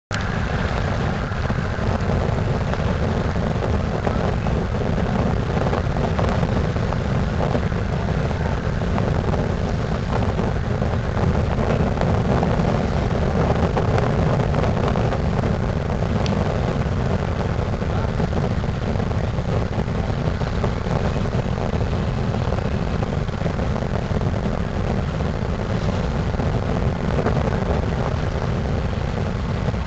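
Steady rumbling noise without pauses: wind on the microphone on a river cruise ship's deck, mixed with the low rumble of ship engines.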